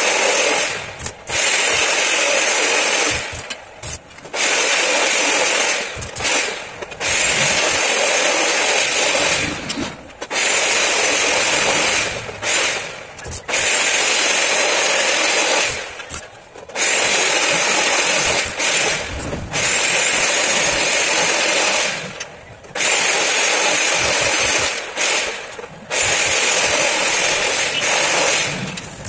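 Electric arc welding: a loud crackling hiss from the arc in runs of two to three seconds with short breaks between, about ten times over, as curved steel strips are tack-welded into a window-grill frame.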